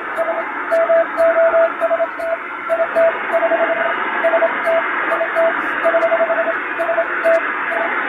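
Hand-keyed Morse code from a straight key: a single mid-pitched tone switched on and off in dots and dashes, over steady shortwave-style static with simulated fading.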